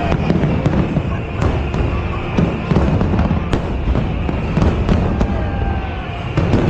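Aerial fireworks bursting in quick, irregular succession: sharp bangs and cracks over a continuous low rumble of explosions.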